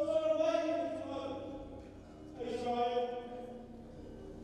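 A stage actor's voice crying out twice in long, drawn-out calls: the first right at the start, lasting about a second and a half, the second, shorter, just past the halfway point.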